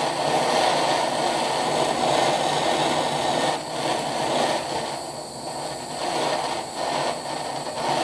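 Handheld gas torch flame hissing steadily, wavering a little in loudness, as it heats a crimped battery-cable lug in a vise until the flux bubbles and the solder can flow.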